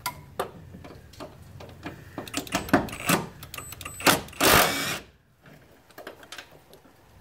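Cordless impact wrench on a motor-mount bolt. A few clinks and knocks as the socket is seated, then about a second of rapid hammering about four seconds in as it spins the bolt loose.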